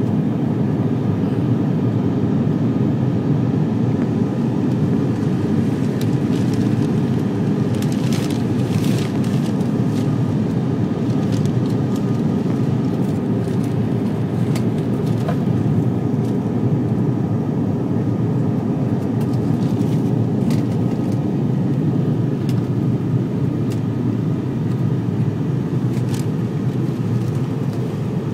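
Steady cabin drone of an ATR 72-500's twin turboprop engines and propellers in flight, heard from inside the passenger cabin, with a faint steady whine above the low roar. A few light clicks come about eight seconds in.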